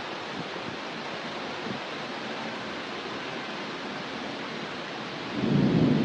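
Heavy rain pouring steadily, with a low rumble of thunder swelling up about five seconds in and becoming the loudest sound.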